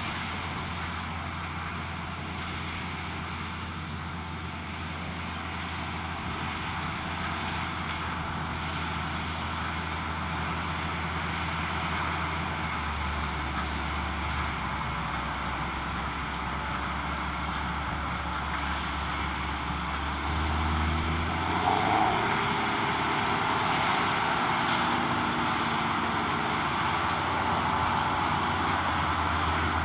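Heavy potato-harvesting machinery running steadily, a deep engine drone with a broad mechanical rumble over it. About two-thirds of the way through, an engine note rises and the sound gets a little louder.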